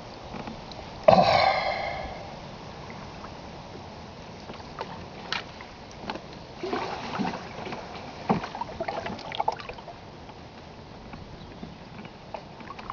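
A hollow knock on an open canoe's hull about a second in, ringing briefly as it dies away. Several smaller knocks and clicks follow while the canoe drifts on the current without paddling.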